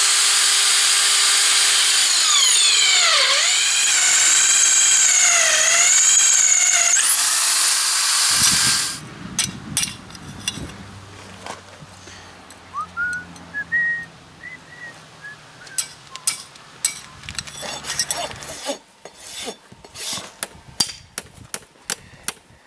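Drill press boring through a steel horseshoe, a loud grinding whine that dips and rises in pitch as the bit cuts, stopping abruptly about eight seconds in. Near the end, a run of quick, light hammer taps as horseshoe nails are driven into the hoof.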